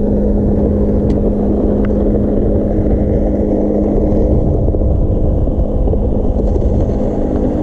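A boat's electric trolling motor humming steadily over a low rumble, its tone shifting about three seconds in.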